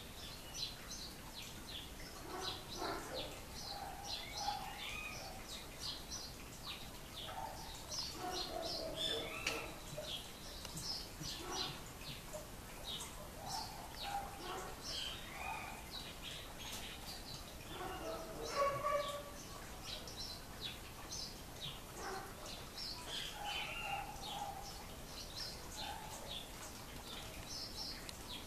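Several birds chirping and calling: a dense, continuous run of short high chirps, with lower calls scattered among them.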